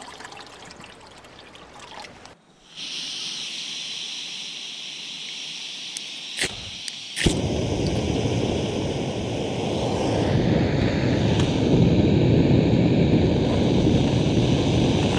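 Water poured into a cooking pot, then a canister backpacking stove: gas hissing from the open valve, a few sharp clicks of the piezo igniter, and about seven seconds in the burner lights and runs with a steady, loud rush of flame.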